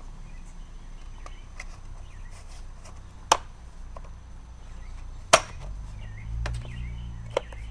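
Hard plastic clicks from the cover of a Stihl AutoCut C 25-2 trimmer head as it is pressed onto the spool housing and its tabs snap into place. There are three sharp clicks: one about a third of the way in, the loudest about two seconds later, and a lighter one near the end, with a few faint ticks of handling between them.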